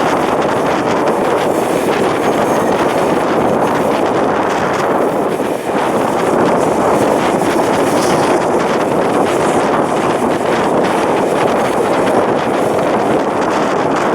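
Wind rushing over the microphone, a loud steady roar with no clear tone or rhythm.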